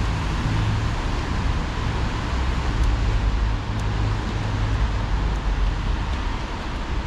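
Steady outdoor city ambience on a rainy street: an even hiss over a low rumble of distant traffic.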